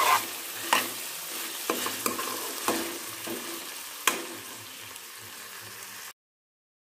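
Goose and potato curry sizzling in a stainless steel kadai while a metal ladle stirs it, scraping and knocking against the pan every second or so. The sound cuts off suddenly about six seconds in.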